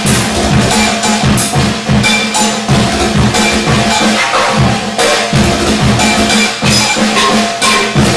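Music with a steady percussive beat, sharp strikes about twice a second over a held low note.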